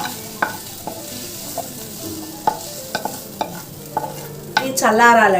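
A metal spoon scraping and clinking against a pan in a dozen or so irregular taps, as a cooked vegetable filling is scooped out into a bowl. A voice or music comes in near the end.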